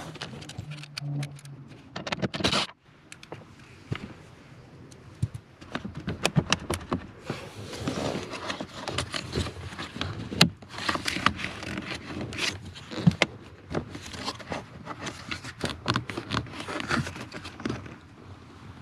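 Irregular clicks, knocks and scraping of hard plastic as hands work at and flex the plastic HVAC heater housing to free the heater damper.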